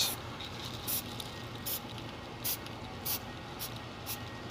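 Aerosol can of white spray paint hissing in about seven short bursts, aimed at a metal coffee can.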